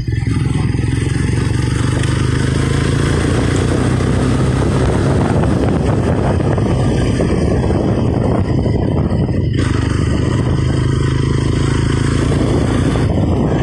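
Motorcycle engine running steadily under way, with wind rushing over the microphone and a brief dip in the noise about two-thirds of the way through.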